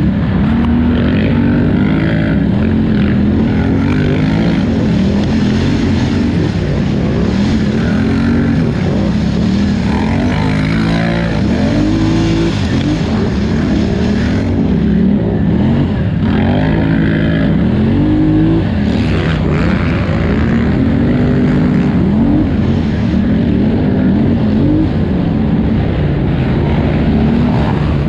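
A 2018 Polaris Scrambler 1000XP ATV engine runs hard under racing throttle. Its pitch rises and falls every second or two as the rider gets on and off the gas.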